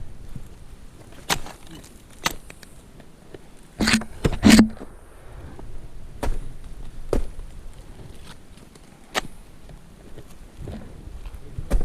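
Ice axe picks and crampon points striking into waterfall ice, one sharp hit every second or two, the loudest pair about four seconds in.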